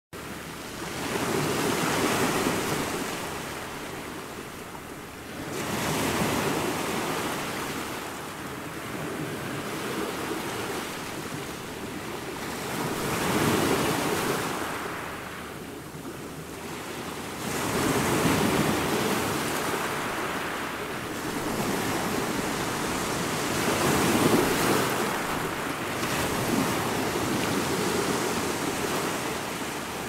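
Ocean waves breaking and washing in: a rushing noise that swells and falls back with each wave, every few seconds.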